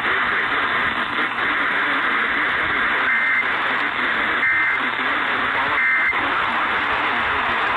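Hiss and static of a weak, fringe-reception radio signal. Three short two-tone data bursts come through it about a second and a half apart, the warbling pattern of Emergency Alert System (SAME) header tones from a distant station.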